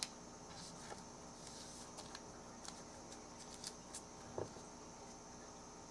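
Trading cards being handled: a few soft, irregular clicks and rustles of cards, with a small knock about four and a half seconds in, over a faint steady background hum.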